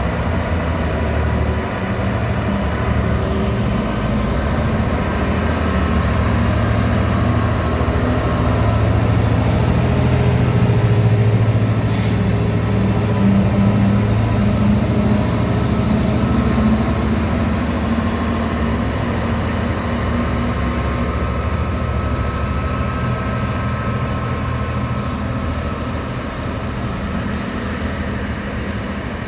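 A train's engine running close by with a steady low hum, swelling to its loudest about ten seconds in and slowly easing off. A brief hiss cuts through near the middle.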